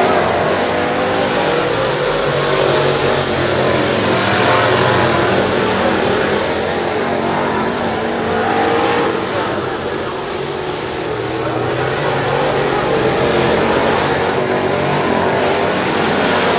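Several crate-engine V8 dirt late model race cars running at speed together, loud, their engines rising and falling as they accelerate and pass, easing a little about ten seconds in.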